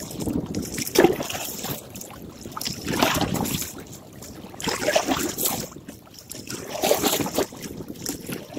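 Wind-driven chop splashing and slapping around a canoe, in surges about every two seconds, with wind buffeting the microphone.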